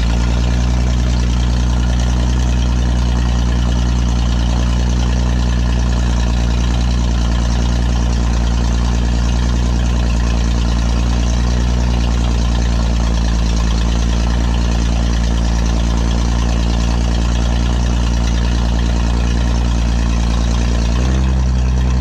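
A Dynahoe backhoe's newly installed engine running at a steady speed, with a small change in tone near the end.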